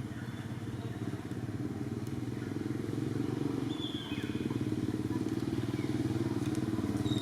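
A small engine running steadily with a fast pulsing beat, slowly growing louder, with a few faint short high chirps over it.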